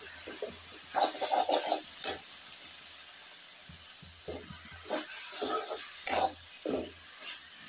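A steel spoon scrapes and stirs shredded cabbage and potato in a steel kadai, in irregular strokes, over a steady hiss of frying and steam. The cabbage is soft and nearly cooked through.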